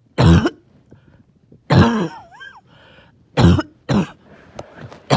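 A person coughing in a wet, phlegmy fit: four harsh coughs spaced about a second or more apart, with a fifth starting at the very end. After the second cough comes a brief whistling wheeze.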